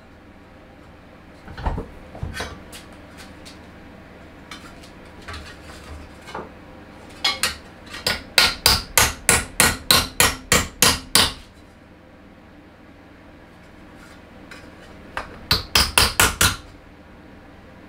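Hammer striking a sheet-metal bracket clamped in a bench vise: a few separate blows, then a fast run of about a dozen sharp metallic strikes near the middle, and another quick run of about seven near the end.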